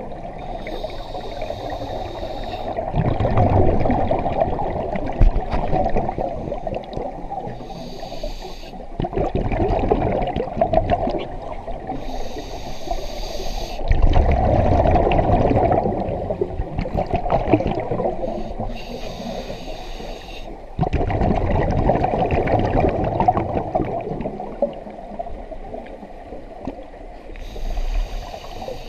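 Scuba diver breathing through a regulator underwater, in slow regular cycles: a short hiss on each inhale, then a louder rumble of exhaled bubbles. About four breaths.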